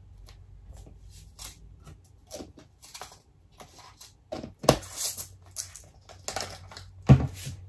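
Plastic G Fuel powder tub and lid being handled: a run of light clicks and rustles, with two louder knocks, one about halfway through and one near the end.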